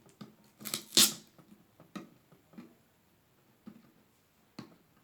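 Plastic packaging of a Pokémon card pack being handled and worked open. There is one loud crinkling rustle about a second in, then a few short crackles and clicks.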